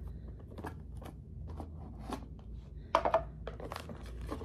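A sunglasses box and its packaging being handled and opened by hand: light taps, clicks and rustling of card and paper, with a louder clatter about three seconds in.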